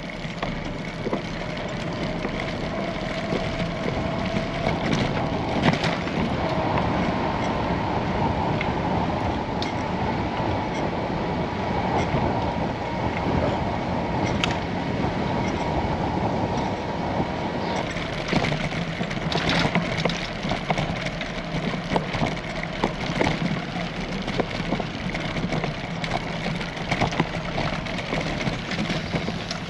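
Bicycle riding noise: tyres rolling over the path with small rattles and clicks, under a steady whine that stops about two-thirds of the way through.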